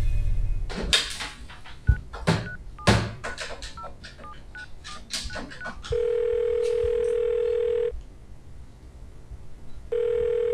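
Corded landline telephone being dialled: handling clicks and a string of short, high keypad beeps as the number is keyed in, then the ringing tone in the handset, a steady low tone lasting about two seconds, a pause, and the tone starting again near the end.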